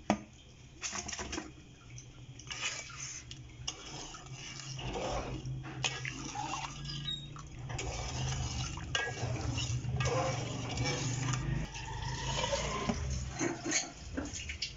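Metal spoon stirring a thick orange marmalade mixture in an aluminium pot, with irregular clinks and scrapes against the pot's sides and bottom. A low hum sits underneath through the middle of it.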